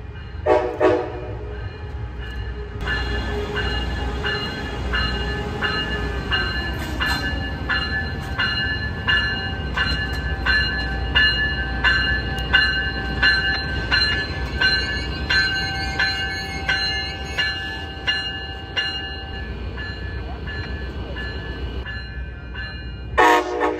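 NCTC Coaster commuter train arriving, its Siemens Charger diesel locomotive running underneath. A short horn blast about half a second in and another near the end, and between them a crossing warning bell ringing at about two strokes a second for some fifteen seconds.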